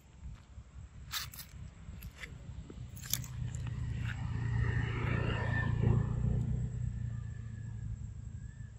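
A macaque biting and chewing dragon fruit, with a few sharp clicks in the first three seconds. A low hum swells and fades in the middle and is the loudest sound.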